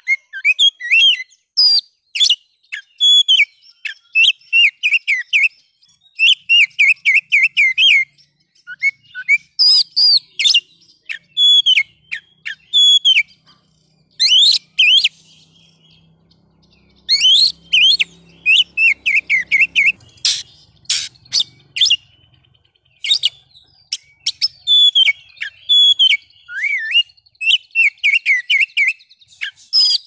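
Oriental magpie-robin (kacer) in full song: rapid phrases of loud, sharp whistles and chattering notes with short breaks between them, and a brief quieter pause about halfway through.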